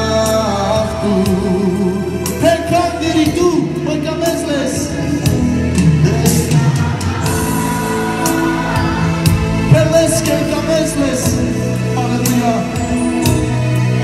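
Gospel song: singing over instrumental backing with percussion.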